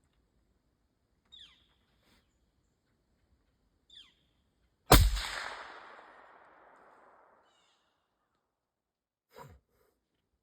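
A single gunshot fired at a feral hog, about five seconds in, its report echoing and fading away over a couple of seconds.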